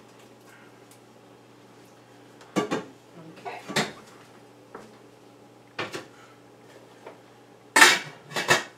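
Metal pots, pans and utensils being handled and set down: a handful of separate sharp clanks and clatters, the loudest about eight seconds in.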